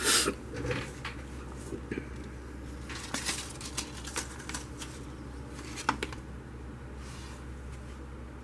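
Scattered light clicks and taps of small hard objects being handled, with one sharper click about six seconds in, over a faint steady hum.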